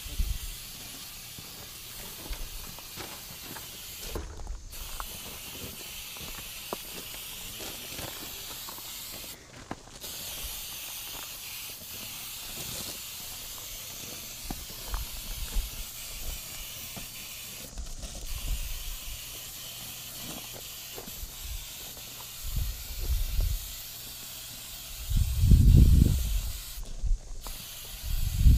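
Aerosol can of food-grade silicone lubricant spraying with a steady hiss onto a rubber tank gasket, broken four times by short pauses in the spray. Low thumps and rumbles come in near the end and are the loudest sound there.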